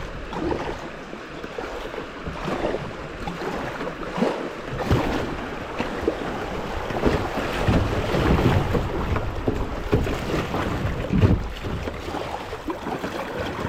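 Creek water rushing and splashing around a kayak in a rapid, with irregular splashes and a low rumble of water and wind buffeting the microphone.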